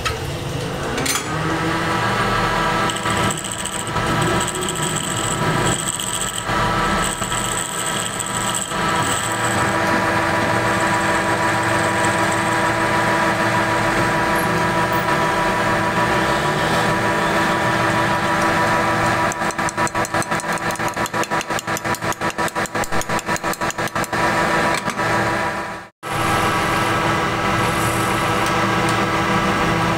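Belt-driven lathe running with a steady whine as a cutting tool turns the end of a spinning wooden snooker cue shaft, with scraping bursts during the first ten seconds. A fast, regular pulsing comes in from about 19 to 25 seconds, and the sound cuts out for an instant at about 26 seconds.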